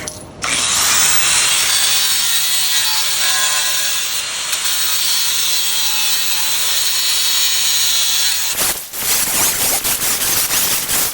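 Angle grinder shaving the edge of a tile down to a marked line. A steady high grinding starts about half a second in and drops out for a moment near the nine-second mark. It then comes back in short, pulsing passes.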